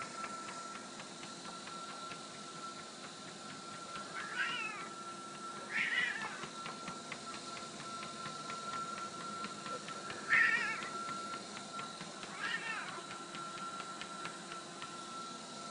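A Siamese-type cat meowing four times, short calls a few seconds apart, while walking on a running treadmill. Under the calls the treadmill makes a steady high hum.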